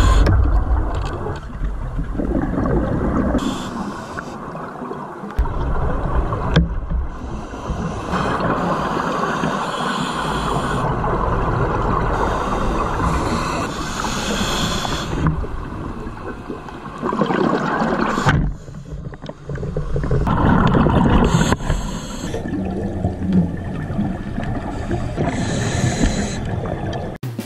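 Scuba diver breathing through a regulator underwater: short hissing inhales alternate with longer rumbling, gurgling bursts of exhaled bubbles, repeating every few seconds.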